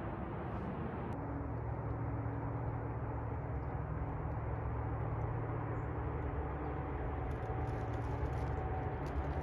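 Steady low drone of a distant engine, with faint ticks near the end.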